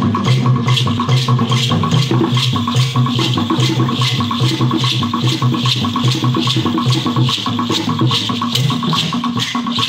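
Kalabari masquerade drum music: pitched drums playing a quick, even beat with rattles shaking over it, going on steadily.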